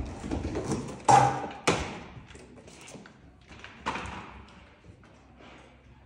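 Canister vacuum cleaner, not running, clattering and knocking on a tiled floor as a puma drags and lifts it by its hose: a rattling scrape, two sharp knocks about a second apart, and another near four seconds in.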